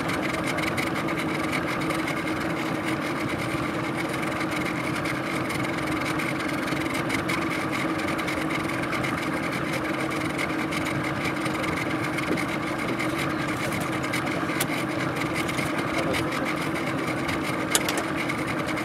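Boat's outboard motor idling steadily, with a brief knock near the end.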